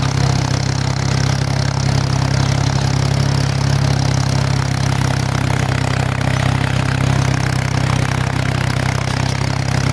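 Tractor engine running steadily while pulling a seed drill through the field: a constant low drone that holds the same pitch and level throughout.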